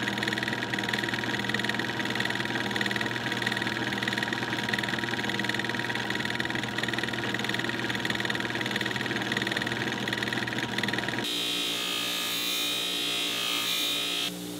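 Small metal lathe running steadily, turning a small metal part against a cutting tool. About eleven seconds in it gives way to a bench buffing wheel running, with a brighter hiss as a small metal part is pressed against it for polishing.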